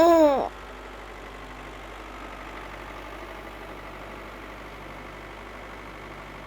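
Cartoon tractor engine sound effect running steadily at a low level.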